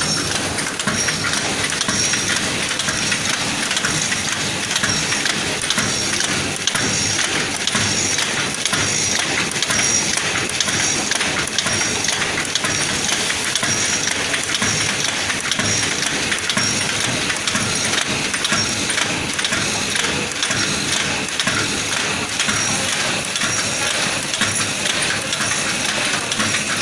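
Automatic vertical pouch packing machine for snacks running: a dense, steady mechanical clatter, with a faint high sound repeating a little more than once a second.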